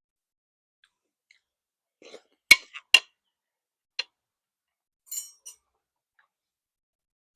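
Eating utensils tapping and clinking against a noodle bowl: a few sharp clicks, the two loudest close together about two and a half seconds in, and a short rustle near five seconds.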